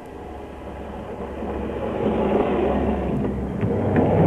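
3½-inch-gauge model electric tram running along its track toward the listener, its rumble on the rails growing steadily louder as it comes in.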